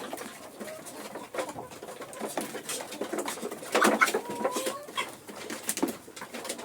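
Kienyeji hens in a coop making low, soft clucking calls, the clearest about four seconds in, with scattered sharp taps among them.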